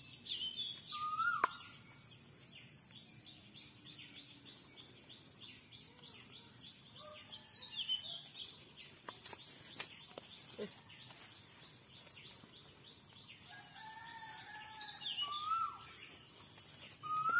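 Wild birds calling now and then, short whistled notes and chirps, over a steady high-pitched insect drone; a few faint clicks and rustles in the middle as hands work in the leaf litter.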